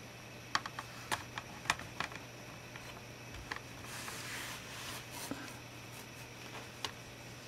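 A quick run of light, sharp clicks and taps from small hard parts being handled, then a brief soft rustle and one more click near the end, over a steady low hum.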